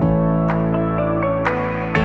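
Soft ambient instrumental background music, with sustained low notes and a new note struck every half second to a second.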